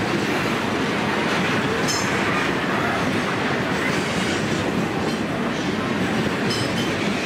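Loaded grain hopper wagons of a freight train rolling past, making a steady noise of steel wheels running on the rails.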